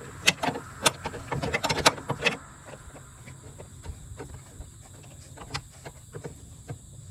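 Metal clicks and clinks of an 18 mm box-end wrench working a torque-mount bolt loose: several sharp clicks in the first two seconds or so, then only an occasional click.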